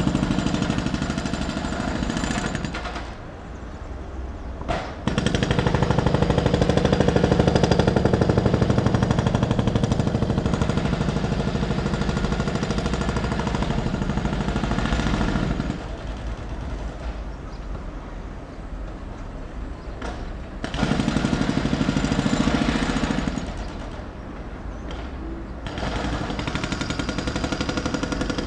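Pneumatic road drill (jackhammer) hammering in long bursts: it stops about three seconds in, resumes at about five seconds and runs to about sixteen, stops again, and comes back briefly at about twenty-one seconds and once more near the end, more quietly. Traffic noise runs steadily underneath and fills the pauses.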